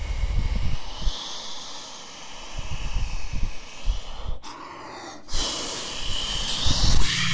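Spaceship sound effect: a steady rushing hiss with irregular low rumbles. It drops away suddenly about four and a half seconds in and comes back sharply about a second later.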